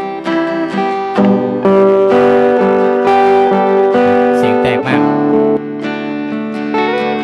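Playback of layered acoustic guitar tracks, picked notes over strummed chords, with a speaker-simulator effect on the picked guitar track being switched between models. The notes ring out one after another, louder from about a second in until about five seconds in.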